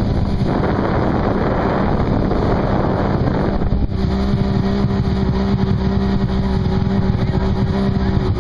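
Jet ski engine running steadily while under way on the water, with a rushing noise over the first few seconds that drops away about four seconds in, leaving a plain, even engine note.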